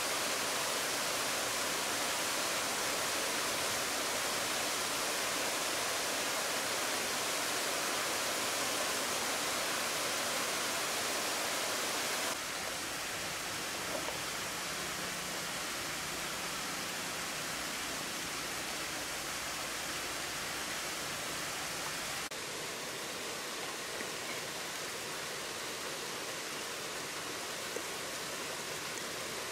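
Waterfall and river water rushing, a steady even hiss; the level steps down slightly about twelve and twenty-two seconds in.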